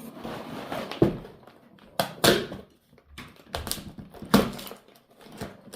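Lego set box being opened and bags of plastic Lego pieces handled: rustling broken by sharp knocks and clatters, the loudest about one, two and four seconds in.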